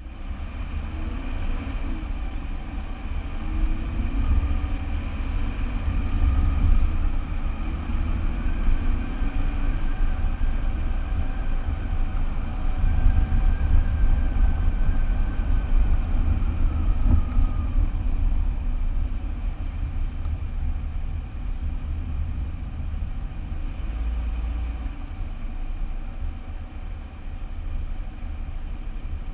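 Car driving, heard through a car-mounted action camera: steady engine and road noise under heavy low wind rumble, with a faint whine that rises and then falls away through the middle.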